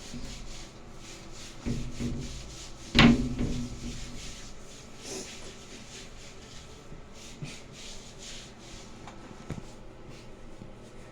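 Scuffling and rubbing in a bathroom as a wet dog is handled into a shower, with a smaller knock and then a loud thump about three seconds in.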